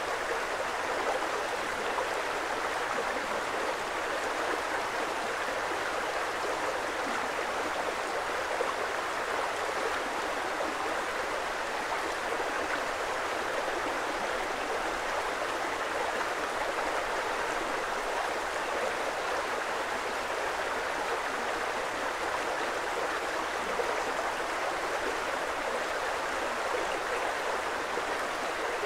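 Creek water flowing in an even, unbroken rush.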